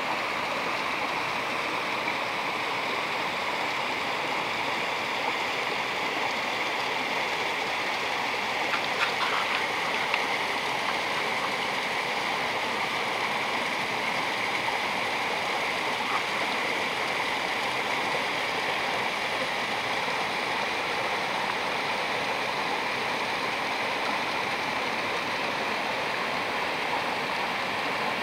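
Small stream running fast and splashing over a log jam and stones: a steady rushing of water, with a few brief clicks about a third of the way in.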